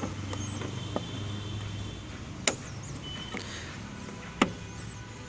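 Parts of a car's fuel filler housing being handled and fitted back into place: a few sharp clicks and knocks, the loudest about two and a half seconds in and again near the end, over a steady low hum.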